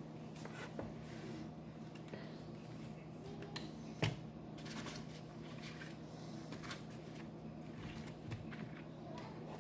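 Vegetables being handled in a plastic colander: scattered light knocks and rubbing as stalks and carrots are moved, with one louder knock about four seconds in, over a steady low hum.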